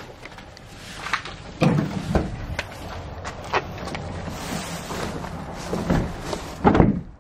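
Footsteps through dry grass with camera handling noise: irregular thumps and rustles, the loudest about a second and a half in and near the end.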